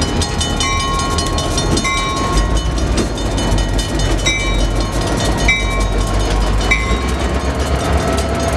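Two EMD GP38-2 diesel locomotives rumbling past at close range, with the wheels clacking over the crossing. The grade-crossing bell rings repeatedly, and a steady whine comes in near the end.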